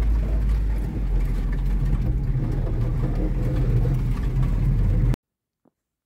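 Lada Niva's engine and drivetrain drone while driving on a snow-packed track, heard from inside the cabin; it stays steady and cuts off abruptly about five seconds in.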